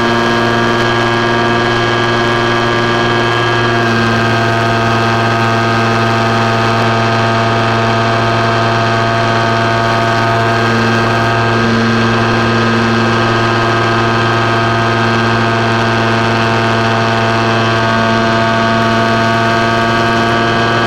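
RC model plane's motor and propeller running steadily at a constant throttle, heard close up from the camera mounted on the plane, as a loud, even drone with a slight change in tone about four seconds in.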